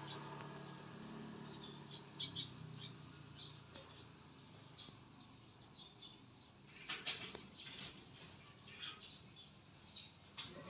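Faint outdoor ambience with scattered short, high bird chirps and a few brief rustles, two of them about two-thirds through and near the end. The tail of background music fades out at the start.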